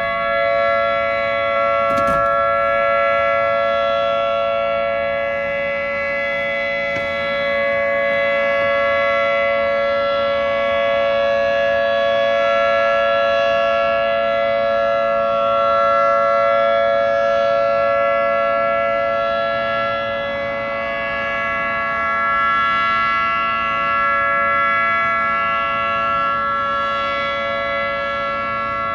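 Federal Signal 2T22 two-tone rotating outdoor warning siren sounding the steady Alert signal: a held two-tone chord that swells and fades slowly in loudness as the rotating head turns.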